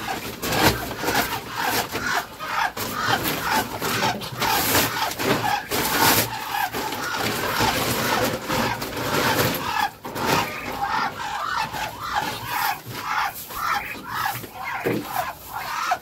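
Woven plastic feed sacks rustling and crinkling as they are pulled and pushed into place against a cage, over a quick, steady run of short calls from caged poultry.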